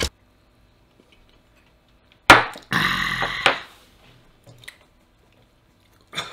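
A man's sudden cough and rasping splutter, about two seconds in and lasting about a second, as a sip of neat whisky goes down the wrong way.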